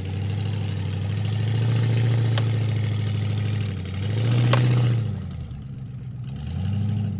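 Pickup truck engine revving in three surges under load as it pulls a kinetic recovery rope to tip a car onto its side, with a sharp knock about halfway through.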